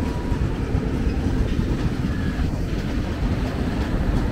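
Passenger train of LHB coaches rolling past: a steady low rumble of wheels on the rails with light clacking.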